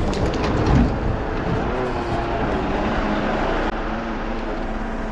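Delivery lorry's engine running steadily while it unloads, with a few knocks near the start.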